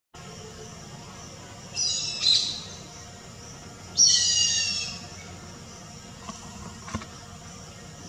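Grey hornbill calling twice with high-pitched notes: a short double call about two seconds in, then a louder, longer call at four seconds that falls slightly in pitch.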